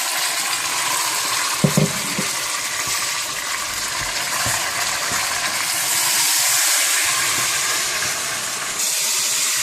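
Raw minced meat sizzling loudly in hot ghee with browned onions in a cooking pot, with a couple of short knocks about one and a half to two seconds in.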